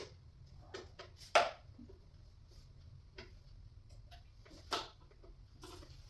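Scattered clicks and knocks of flat-pack cabinet parts and tools being handled during assembly, with one sharper knock about a second and a half in and another near five seconds.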